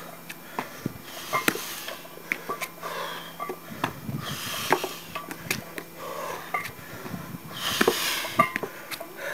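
Heavy breathing during barbell step-ups onto a wooden step box, with loud breaths a few seconds apart. Sharp clicks and knocks of feet landing on the box and metal barbell plates clinking run throughout.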